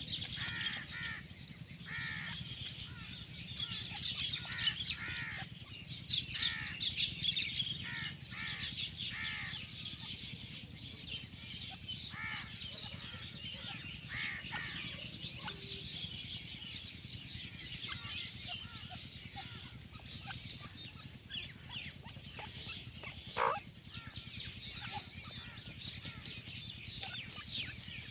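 Outdoor birdsong: many short, arched chirping calls, thick and several a second in the first ten seconds and sparser after, over a steady background of distant bird chatter. One louder, sharper note stands out about 23 seconds in.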